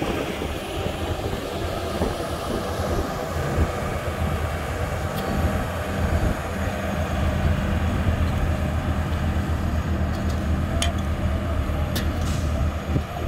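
Diesel engines of road rollers, a pneumatic-tyre roller and a tandem steel-drum roller, running steadily while compacting fresh asphalt. A few sharp clicks near the end.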